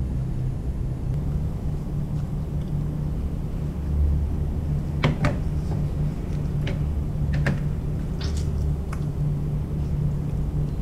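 Steady low hum with a few scattered clicks and knocks from a chef's knife and hands on a plastic cutting board, about halfway through and after, while the skin is peeled off a squid mantle.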